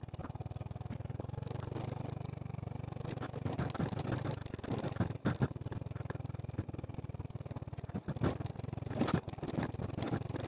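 Motorcycle engine running steadily at low speed, with scattered knocks and clatter as the bike jolts over a rough dirt track.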